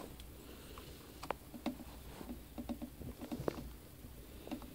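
Irregular small clicks and taps of plastic and metal as a screwdriver and fingers work a netbook's keyboard back into its case, the loudest click about three and a half seconds in.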